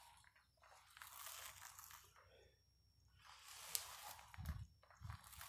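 Faint gritty rolling of an ab wheel out and back across the garage floor, a pass about every two seconds as the rollouts repeat, with one sharp tick about midway and a few low thuds near the end.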